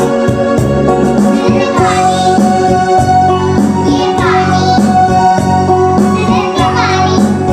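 Music with children singing over it.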